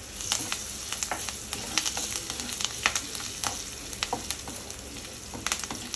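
Tempering of mustard seeds, cumin, green chilli, ginger and freshly added curry leaves sizzling in hot ghee in a nonstick pan, with a steady hiss and scattered sharp crackles and pops. A slotted steel spatula stirs and scrapes the spices across the pan.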